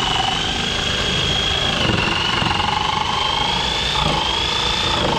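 Handheld power tool cutting a plastic car bumper, its motor running steadily with a high whine that wavers in pitch as the load changes.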